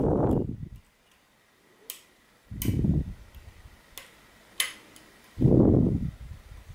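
Small sharp clicks and ticks of a slim lock pick working the pin tumblers inside a Yale rim cylinder during single-pin picking, a handful of them spaced out. Between them come three louder low rumbles, each about a second long.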